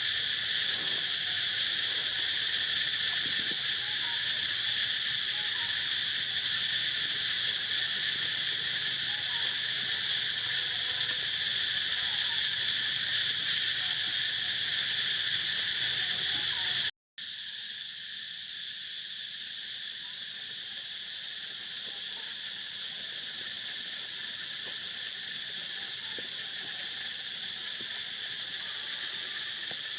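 Steady, unbroken high-pitched drone of an insect chorus, with a few faint short calls underneath. It cuts out completely for a moment about seventeen seconds in, then carries on a little quieter.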